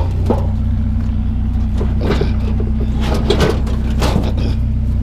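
Truck engine idling steadily, with several knocks and clatters of scrap being handled over it.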